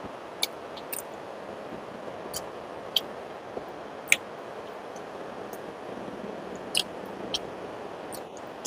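Close-miked mukbang eating of rice and fish curry: sharp, irregular mouth clicks and smacks from chewing, about eight in a few seconds, over a steady low hiss.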